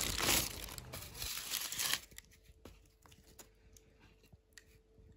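Tissue paper crinkling and rustling as it is pulled back in a shoebox, for about two seconds. It then cuts off suddenly, leaving only a few faint clicks.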